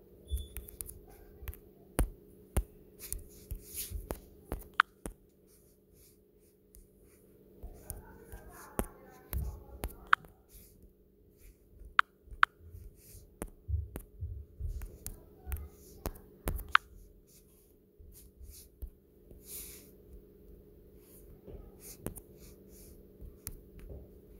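Fingertips tapping and handling a phone touchscreen, irregular sharp taps a second or so apart, over a faint steady hum.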